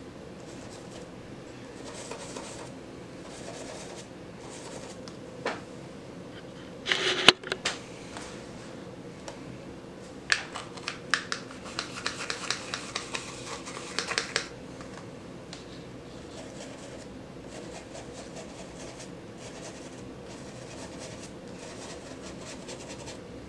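A thumb flicking across toothbrush bristles to spatter white gesso, a dense run of quick scratchy ticks lasting about four seconds. Earlier there is a brief clatter and one sharp knock, over a faint steady hum.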